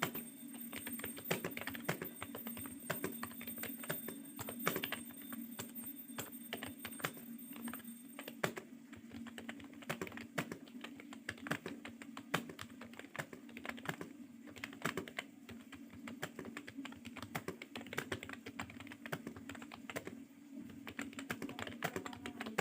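Fast typing on a computer keyboard: a quick, irregular stream of key clicks, over a steady low hum.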